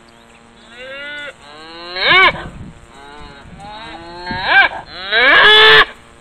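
Cattle mooing: several separate calls from the herd, the longest and loudest near the end.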